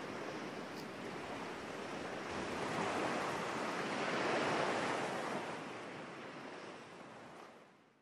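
Sea surf breaking on a sandy beach: a steady wash that swells into a bigger crashing wave around the middle, then fades out near the end.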